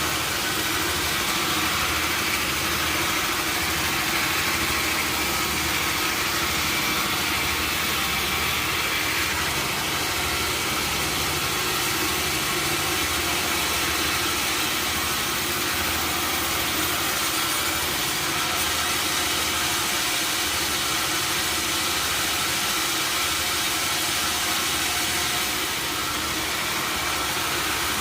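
Sawmill machinery running steadily: an even engine drone with a low pulsing hum and a broad hiss, with no rise or fall in pitch.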